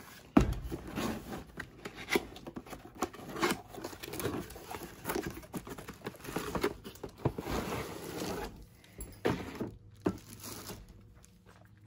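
Cardboard box flaps being opened and a chrome air cleaner in a plastic bag lifted out: irregular rustling, scraping and crinkling of cardboard and plastic, with a sharp knock about half a second in.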